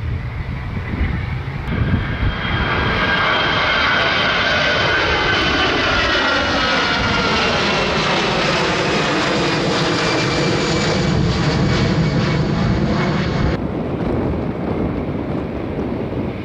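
Aircraft engine noise passing overhead: it swells in about two seconds in, its tone sweeping slowly down and then back up, and it cuts off suddenly near the end.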